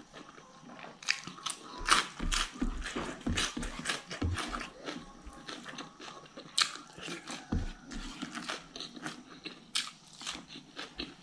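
Close-up chewing of crunchy food: sharp, irregular crunches and wet mouth sounds, loudest about two seconds in.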